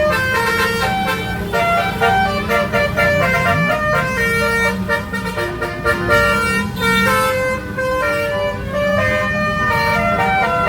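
Bus 'basuri' melody horn playing a tune: several horn tones at once, changing notes every fraction of a second, over a low rumble.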